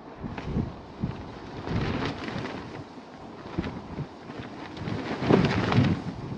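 Strong gusty wind buffeting the microphone: uneven low rumbles with crackling, the loudest gust about five seconds in.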